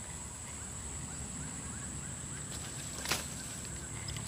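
Faint handling of a casting rod and reel, with one sharp click about three seconds in, over a steady low rumble and a thin high whine.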